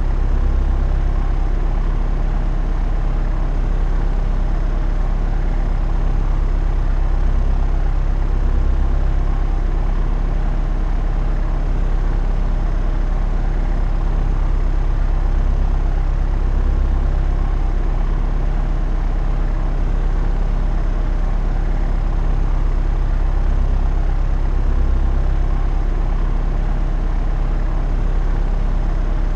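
Propeller aeroplane's engine and propeller droning steadily in flight, a deep, even hum that swells gently about every eight seconds.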